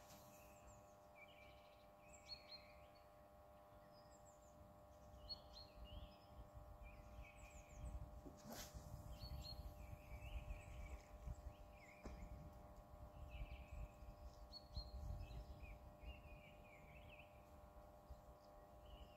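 Faint birdsong, many short chirps, over a low rumble that swells through the middle, with one sharp click a little before halfway.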